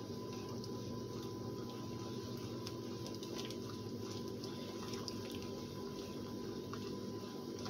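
A spatula stirring a pan of simmering homemade teriyaki sauce, with scattered small pops from the bubbling liquid over a steady low hum.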